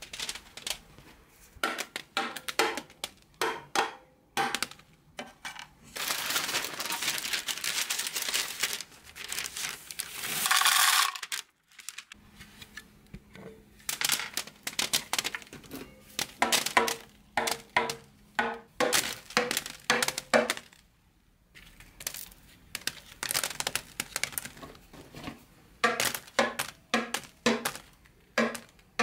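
Chocolate bonbons being knocked out of a polycarbonate chocolate mould: many sharp clicks and clatters as the pieces drop onto a mat. A stretch of crackling and rustling comes about six to eleven seconds in.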